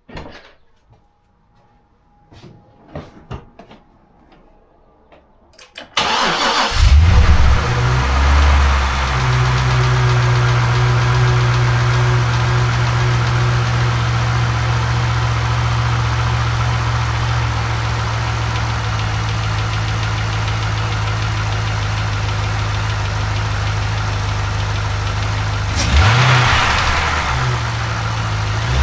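GM LS7 7.0-litre V8 starting about six seconds in, after a few faint clicks. It settles within a few seconds into a steady idle and gets one brief rev near the end. This is the engine with the ticking noise its owner is chasing.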